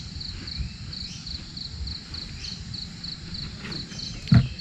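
Insects chirping in a steady, even rhythm, about three high chirps a second, over a low rumble. A single dull thump sounds near the end.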